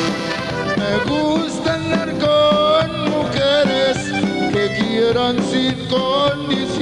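A Tejano band playing live, with an accordion carrying the melody over the rhythm section. A male singer comes in with a word near the end.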